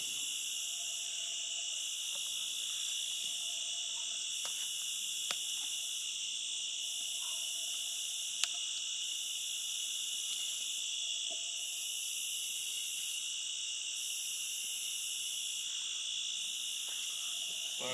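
Night insect chorus of crickets and other insects trilling steadily in several high-pitched layers, the highest layer pulsing on and off every two seconds or so. Two faint sharp clicks stand out, about five seconds in and again near the middle.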